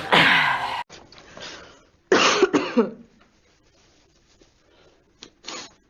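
A person sneezing. One sneeze ends about a second in, a second loud sneeze comes about two seconds in, and two short sharp breaths or sneezes follow near the end.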